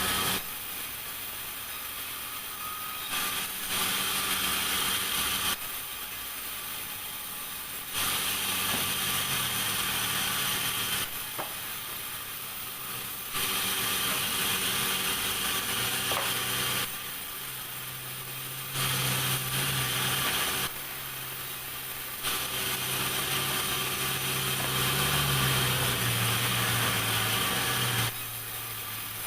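Sawmill machinery running steadily. In several stretches of a few seconds each the saw's cutting hiss grows loud, then drops back to the machine's running hum.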